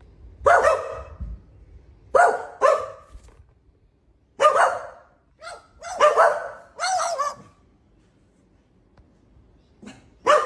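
A string of short, dog-like barks at uneven intervals, some coming in quick pairs.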